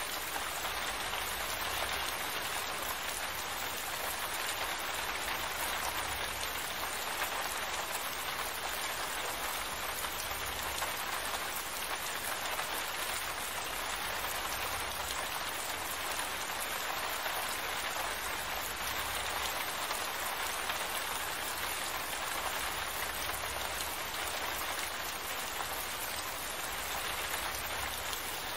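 Steady rain, an even hiss that does not let up, with a faint low rumble coming and going underneath.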